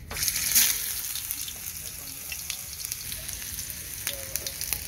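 Slices of tofu sizzling and crackling in hot oil in a frying pan as they are laid in. The sizzle starts suddenly and is loudest about half a second in, then settles to a steady hiss with scattered pops.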